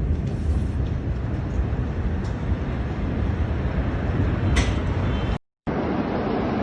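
Steady low rumble and hiss with no clear tones, like wind and distant roar on a phone microphone; it cuts out for a split second about five seconds in, then resumes at the same level.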